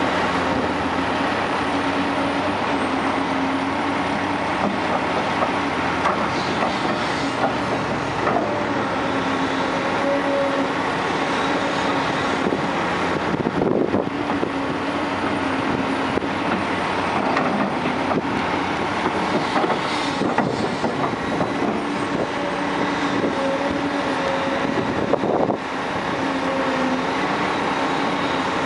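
Caterpillar 345C L excavator working through dig-and-load cycles: its diesel engine runs under load, the engine note swelling and easing as the hydraulics work. There are a few heavy thumps as loads of dirt land in a dump truck bed.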